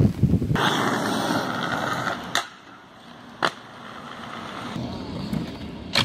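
Aggressive inline skates rolling on concrete, a rough steady rolling noise, with sharp clacks of the skates striking the ground about two and a half seconds in, a second later, and again near the end.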